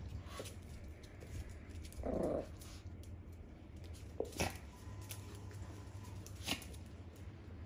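Two small dogs playing rough over a toy, with one short growl about two seconds in and a few sharp knocks of claws or the toy on a hard floor.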